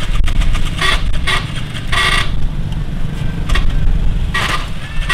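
Several short scrapes and clinks of a metal ladle working in a plastic bucket and against a steel serving bowl as braised food is ladled out, over a steady low rumble of motorbike traffic.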